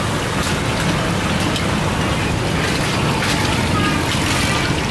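Steady street-side background noise: a continuous low rumble and hiss, with faint voices.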